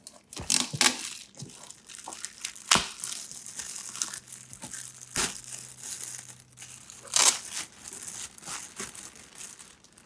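Clear plastic shrink wrap crinkling and tearing as it is pulled off a cardboard box: a steady run of sharp crackles with a few louder ones every couple of seconds.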